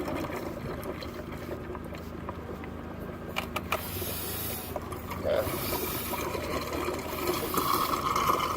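Mityvac MV7201 vacuum fluid evacuator drawing the last of the oil out of a generator's crankcase through its suction tube, with a hiss of air being pulled in that comes and goes in the second half as the sump runs nearly dry. A steady low engine drone runs underneath.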